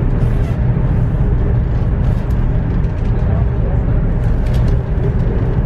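Cabin noise of a high-speed train running at speed, heard inside the carriage: a steady, loud low rumble.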